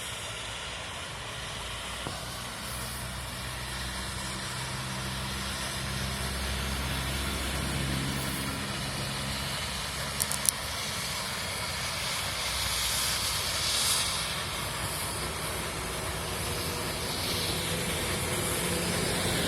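Steam locomotive of the Nilgiri Mountain Railway hissing steam over a steady low hum, with two or three sharp clicks about halfway through.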